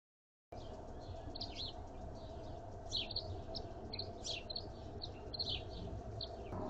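Birds chirping, many short quick notes one after another over steady low background noise. The sound starts about half a second in.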